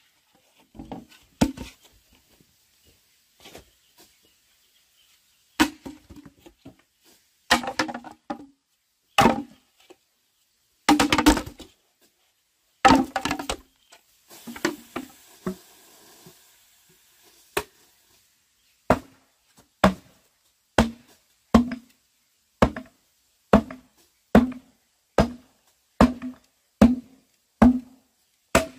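A blade chopping on wood. The strikes come irregularly at first, some with a short rattle, then settle into a steady run of about one stroke a second.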